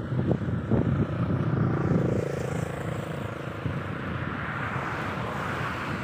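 Wind buffeting the microphone in gusts, giving way about two seconds in to a steadier hum of a distant engine.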